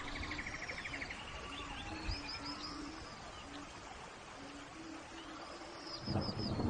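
Forest rain ambience with birds calling over a steady hiss of rain: a fast trill at the start and several short arching chirps. A low rumble swells near the end.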